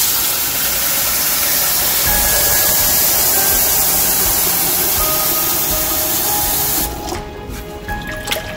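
Kitchen tap running hard into a metal pressure cooker of toor dal in a stainless-steel sink, rinsing the lentils; the water cuts off about seven seconds in. A hand then swishes the dal around in the water.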